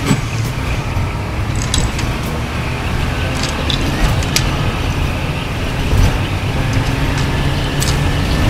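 Steady low rumble, with a few light plastic clicks from the Lego Technic model's steering mechanism as its steering wheel is turned.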